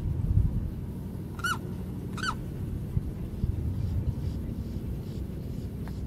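Two short, high calls from a bird, a little under a second apart, each bending down in pitch at its end, over a steady low rumble.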